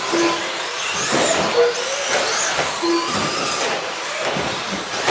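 Electric RC stadium trucks racing on an indoor carpet track: motor whine rising and falling in pitch as they accelerate and brake, with a few short beeps.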